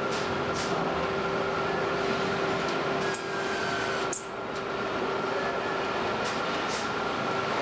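Steady car-assembly-line machinery noise: a constant mechanical drone with a steady hum, briefly dipping twice around the middle.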